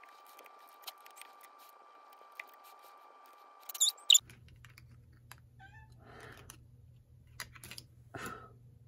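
Light clicks and taps of photocards being handled and laid on a table over a faint steady high hum. About four seconds in, a domestic cat gives a short, high meow, the loudest sound here.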